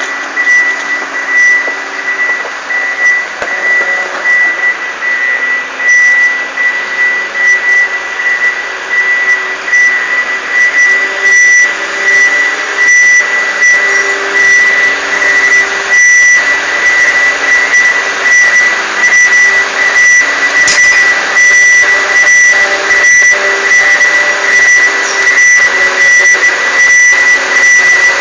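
Ponsse Elephant King forwarder's Mercedes-Benz OM926 diesel engine running at a steady idle, with a constant high-pitched whine over the engine note.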